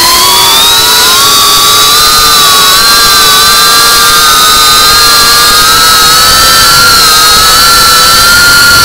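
FPV quadcopter's brushless motors and propellers whining loudly, several close pitches slowly rising together as the drone flies.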